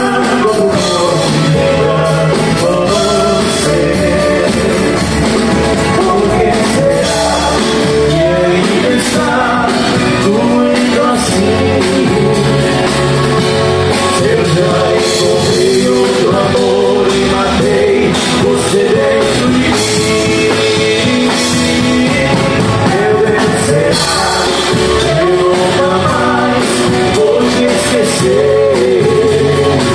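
Live acoustic song: male voice singing over strummed nylon-string acoustic guitars and a third stringed instrument.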